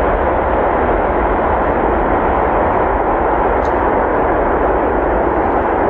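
Antonov An-124's four Progress D-18T turbofan engines on the runway roll: loud, steady jet noise with a deep rumble underneath.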